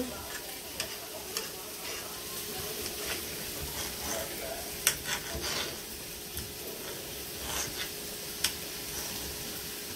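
Kitchen knife chopping an orange bell pepper on a plastic cutting board in irregular taps, two sharper knocks standing out about halfway through and near the end, over the steady sizzle of food frying in a pan on the stove.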